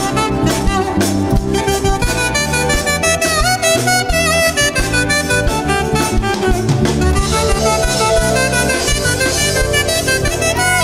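Saxophone playing a melody with slides between notes, over keyboard and drums.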